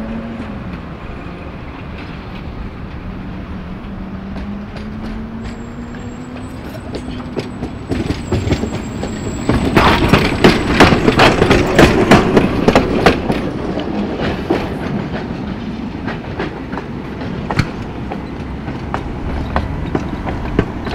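Tatra T3 trams running past on street track, their wheels clacking over rail joints and points. The clatter is densest and loudest about ten seconds in and lighter after that. Before it comes a low motor hum that rises slightly in pitch.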